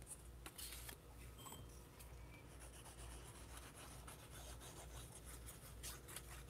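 Faint rubbing and light scratching of paper: strips of designer paper being handled, then a liquid glue bottle's tip drawn across the back of a paper strip.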